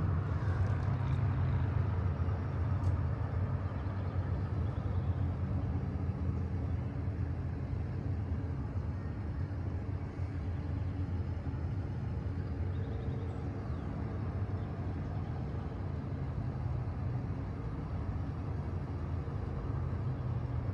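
Steady low engine rumble with a faint hum in it.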